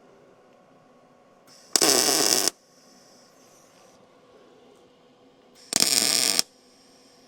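Two short tack welds from an arc welder, each an abrupt crackling burst of under a second that starts and stops sharply. The second comes about four seconds after the first.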